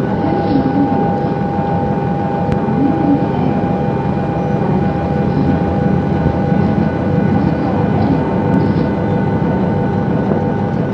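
Steady airplane cabin drone: an even rumble of engine and air noise with a few constant hum tones over it.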